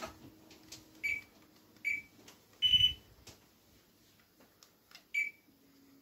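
Hunter Cavera II ceiling fan's receiver giving short high electronic beeps, four in all, as it takes commands from its remote. The third beep is longer, higher and the loudest.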